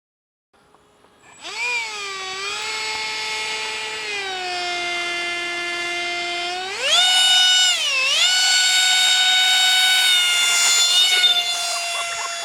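RC model airplane motor running with a high whine that rises and falls with the throttle: it starts a second and a half in, holds, jumps sharply higher about seven seconds in, dips once briefly and settles at the higher pitch.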